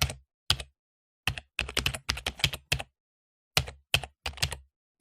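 Typing on a mechanical keyboard fitted with double-shot PBT keycaps: quick runs of key clacks, broken by two short pauses, about a second in and just past the middle.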